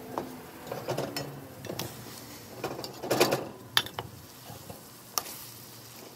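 Pieces of boiled chicken being dropped into a metal pot of oil and water with sautéed vegetables and pushed about with a spatula: scattered soft knocks and clicks against the pot, the loudest about three seconds in, over a faint sizzle.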